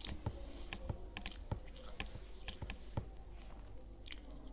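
Close-miked mouth sounds of chewing pav bhaji, soft bread dipped in vegetable mash: a string of sharp, irregular wet clicks and smacks, roughly two a second.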